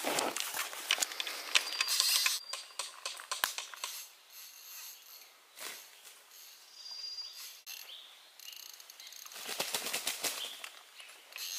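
Rapid crackling and rustling in leaves and brush, dense for the first few seconds, then quieter, with another short burst near the end: a shot pheasant flapping its wings in the undergrowth.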